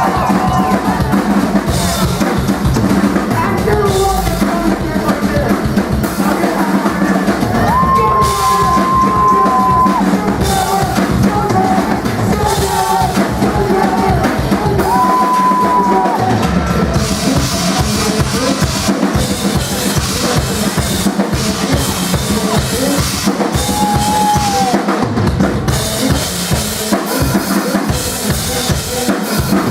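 Loud live band music in a club, driven by a drum kit with a pounding bass drum and snare, with a few long held notes rising above the mix.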